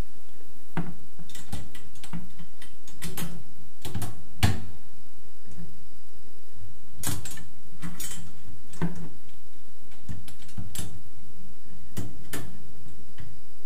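Chrome wire pull-out basket and its metal frame clinking and knocking as they are handled and fitted together: scattered clicks and clanks in small clusters, the loudest about four and a half seconds in.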